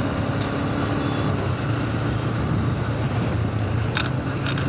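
Motorcycle engine running at a steady cruising speed while riding, its even hum mixed with a constant rush of wind and road noise.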